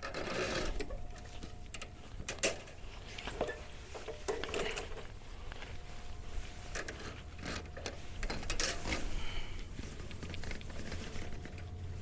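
Electric drain snake machine running, its motor humming steadily while the spinning cable clatters with irregular clicks and knocks as it is fed into a clogged sewer drain.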